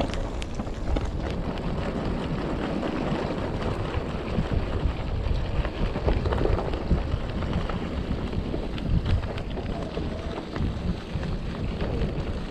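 Wind buffeting the microphone of a moving electric bike, over a steady rumble of its tyres on a rough track, with scattered small clicks and rattles.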